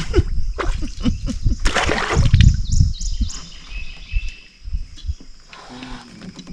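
A hooked bluegill splashing at the surface as it is swung out of the water on a long fishing pole, loudest about two seconds in, with knocks and thumps around it. Birds chirp throughout.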